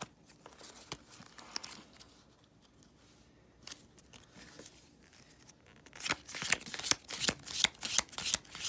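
Faint rustling of a pack of Pokémon trading cards being handled, then from about six seconds in a quick run of sharp card flicks, several a second, as the cards are slid and flipped through by hand.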